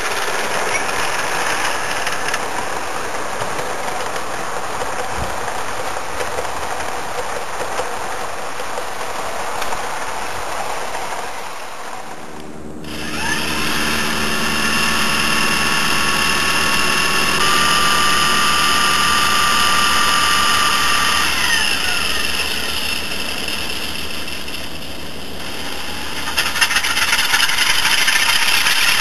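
A model train running past on garden track, its wheels and motor giving an even whirring rattle. About twelve seconds in, this changes suddenly to a model diesel locomotive's DCC sound-decoder engine sound: a steady engine note with several held tones, and a higher note held for a few seconds.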